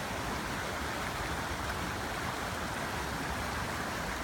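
Creek water flowing over rocks, a steady rushing without breaks.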